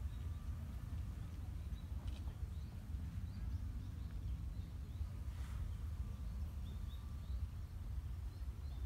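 Wind buffeting the microphone as a steady low rumble, with faint, scattered high chirps of small birds and an occasional light click.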